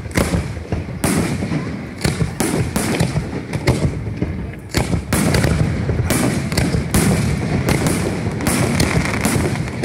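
Aerial fireworks show: shells bursting with sharp bangs about every second or so, over a continuous crackle and low rumble.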